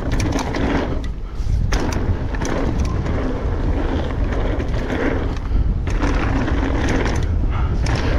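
Mountain bike rolling fast down a packed-dirt trail: tyre noise with a heavy low rumble, and frequent clicks and rattles from the bike over bumps.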